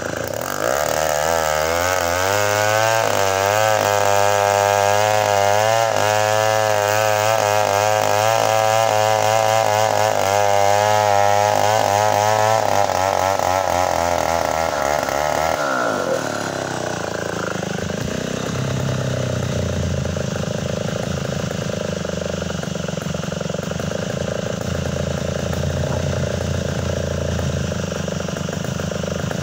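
Chainsaw ripping lengthwise through a ulin (Bornean ironwood) log, running loud at full throttle with a wavering pitch, then dropping back to a lower, steady idle about halfway through.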